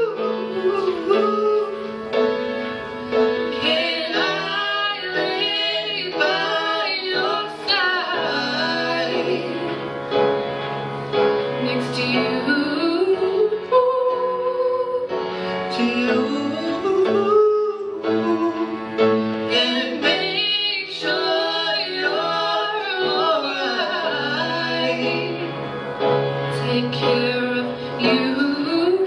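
A woman and a man singing a slow ballad over an upright piano, with long held notes and several rising slides in pitch; the woman's voice leads for most of it.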